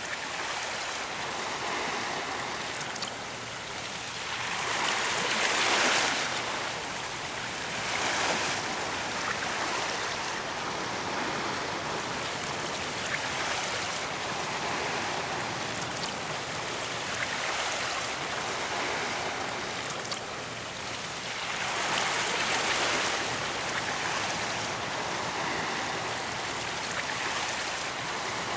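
Ocean waves breaking and washing onto a beach: a steady hiss of surf that swells with a few louder breakers, around five, eight and twenty-two seconds in.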